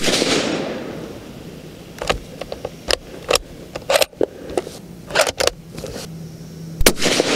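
Suppressed Sig Cross .308 Winchester bolt-action rifle: the report of a shot rings away in the first second. The bolt is then worked in a string of short metallic clicks and clacks as the spent case is ejected and a new round chambered. Another shot goes off near the end.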